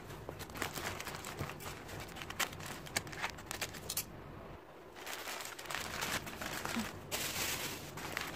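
Plastic packing wrap crinkling and rustling as hands pull and fold it in a cardboard box, with many small crackles and a brief quieter pause about four seconds in.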